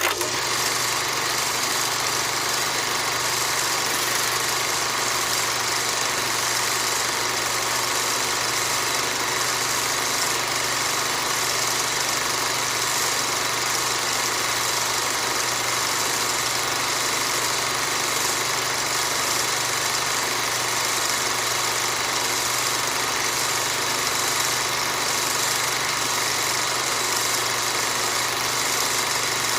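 Old film sound effect: a film projector running steadily, a mechanical whirr with a low hum under constant hiss and faint fine crackle.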